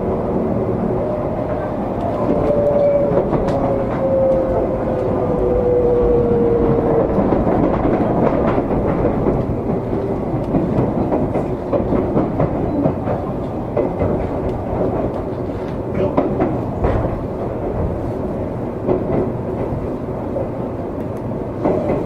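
Seibu 20000 series electric train running, with its wheels on the rails making a dense steady noise. A motor whine falls slowly in pitch a few seconds in as the train slows. Sharp clicks from rail joints and points are scattered through the second half.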